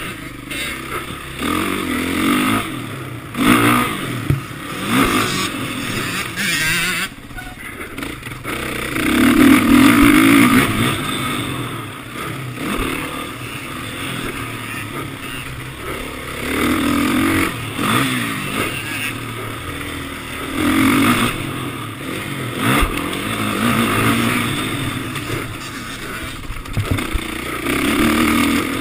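Motocross motorcycle engines revving hard and easing off again and again as bikes race past on the track, with the loudest surge about ten seconds in.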